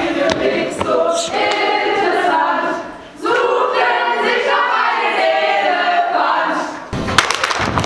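A group of voices singing together a cappella, breaking off briefly about three seconds in. Near the end, a run of sharp percussive hits starts.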